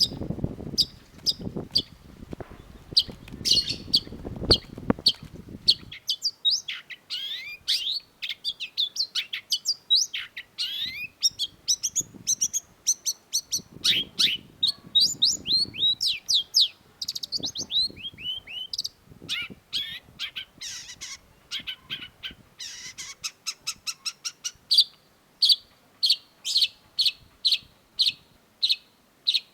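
Long-tailed shrike singing a fast, varied song of sharp chirps and downward-sweeping whistled notes. Near the end it settles into a steady series of sharp repeated notes, about one and a half a second. A low rumble sits under the first few seconds.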